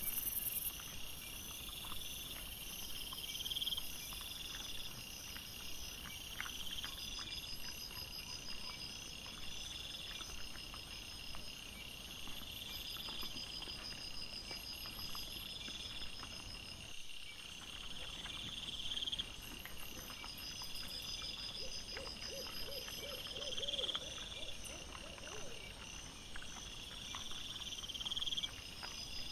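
Night insects chirping in long trills that repeat every second or two, with scattered faint ticks and rustles beneath.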